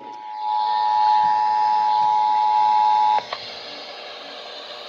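Emergency Alert System attention signal: two steady tones at about 853 and 960 Hz sounding together, cutting off suddenly about three seconds in. A steady hiss remains after it.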